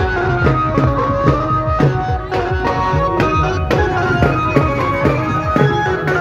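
Traditional Indian music: a hand drum playing quick, steady strokes with low notes that dip in pitch, under a held melodic line.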